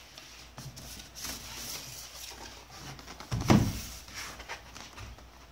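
Cardboard box being handled and its top flap pried open: faint scraping and rustling of cardboard, with one dull knock about three and a half seconds in.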